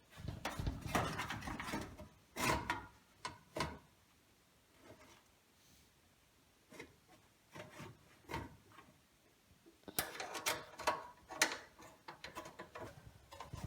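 Hard drive and PC case parts being handled and fitted: scraping, rubbing and clicking in irregular bursts, with a longer stretch at the start and another cluster near the end.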